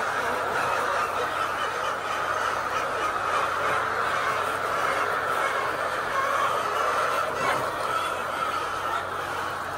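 A large flock of layer chickens calling all at once, a dense, steady din with no single bird standing out.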